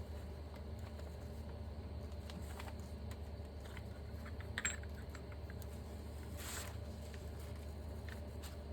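Light metallic clicks and clinks from handling brake caliper parts while working a piston into its bore, the sharpest clink about halfway, with a short rustle a little later, over a steady low hum.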